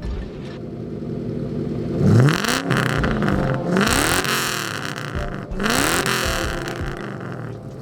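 Ford 4.6-litre four-valve DOHC V8 in a Mustang GT idling on a freshly welded custom exhaust and revved three times in quick blips, the first the loudest.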